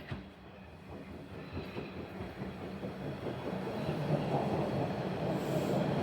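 A Toronto TTC subway or light rail train approaching, its running and wheel noise on the track growing steadily louder. There is a sharp click right at the start.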